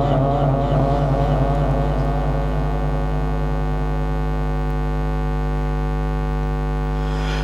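Steady electrical hum from a public-address system, with a strong low mains tone and many even overtones. It holds level and unchanged in pitch, and the last echo of the reciting voice dies away in the first second or two.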